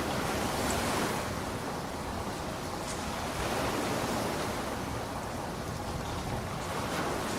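Steady heavy rain, an even hiss that swells and eases gently, with a few faint drop ticks.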